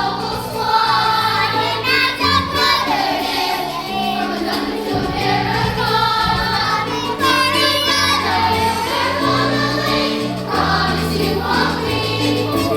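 Children's chorus singing a musical-theatre number together with instrumental accompaniment and a steady bass line.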